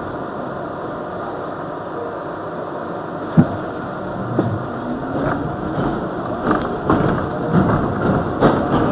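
Heard inside the rear car of an R62A subway train pulling away from a station: a steady running noise, then wheel clacks and knocks over rail joints from about three seconds in, coming more often and louder as the train gathers speed.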